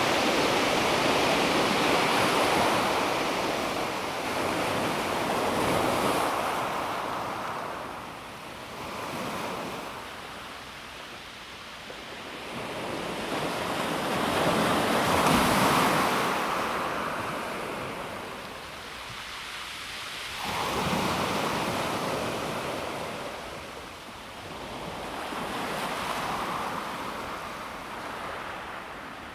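Calm sea waves washing in over a pebble beach. The hiss swells and fades in slow surges every few seconds, loudest about halfway through.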